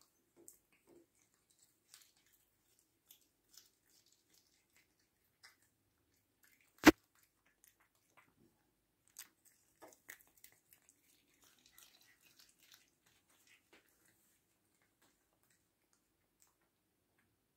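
Sphynx cat chewing a shrimp: soft, scattered wet clicks and crunches, with one sharp knock about seven seconds in.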